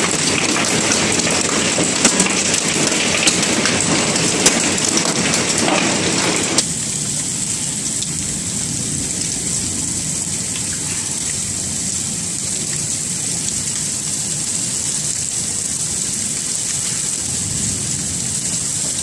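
Hailstones pelting down in a heavy storm: many sharp strikes over a steady rush of falling rain and ice. About six and a half seconds in, the sound changes abruptly to a softer, even rain-like hiss with only scattered strikes.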